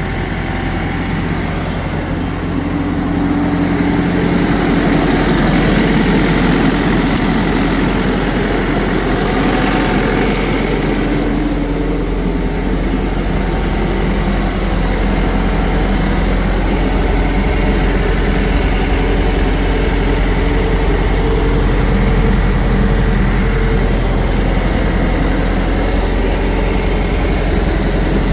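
Landini Rex 105 GT tractor's diesel engine running steadily, growing louder about three seconds in and then holding its note.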